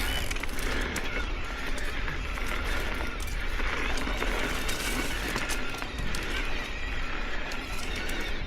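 Electric mountain bike on a dirt trail: knobby tyres rolling and crunching over dirt and gravel, with scattered clicks and rattles from the bike. A steady low wind rumble sits on the camera microphone underneath.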